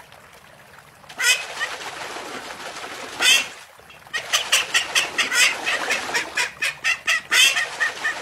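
White domestic duck quacking in alarm: a loud quack about a second in and another about three seconds in, then a rapid run of quacks, about four or five a second, in the second half.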